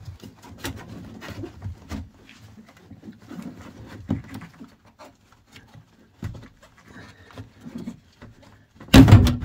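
Scattered clicks, rattles and rustles of plastic trim and wiring being handled and prised at inside a car's stripped interior, with a loud knock about nine seconds in.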